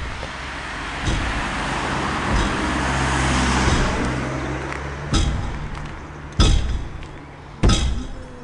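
A slow, regular beat: a heavy drum hit about every second and a quarter, over a steady low hum and a rush of noise that swells toward the middle and fades.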